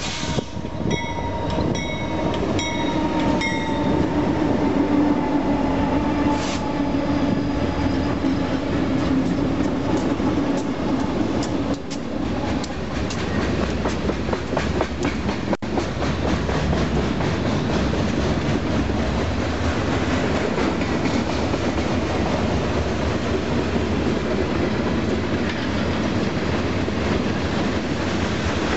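Freight train passing close by: the lead diesel locomotives go by with a deep engine drone, then a long string of tank cars follows, the wheels clattering and rumbling over the rails. Short, high ringing tones repeat about twice a second in the first few seconds.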